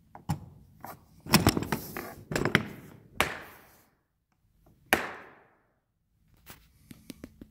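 Hand knocking and patting on a closed hard plastic carrying case: a run of knocks and clicks, with two sharper knocks about three and five seconds in that ring on briefly, then a few light clicks near the end.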